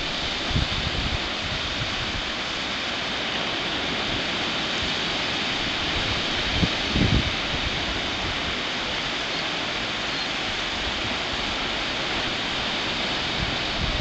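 Steady wash of low surf breaking on a sandy beach. A few short gusts of wind buffet the microphone, the clearest about seven seconds in.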